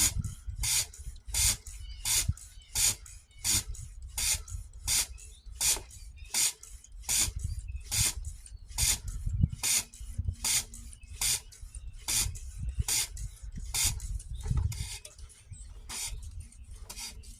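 Hand pump of a Harbor Freight manual fluid extractor worked in steady strokes, about three every two seconds, each stroke a short hissing rasp of air. It is drawing a vacuum to suck the hydraulic oil out of a mini excavator's tank.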